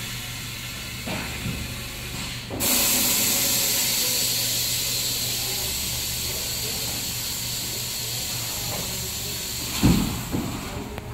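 Fabric spreading and cutting machinery: a loud, steady hiss of rushing air starts suddenly about two and a half seconds in and slowly eases, over a low machine hum. A single thump comes near the end.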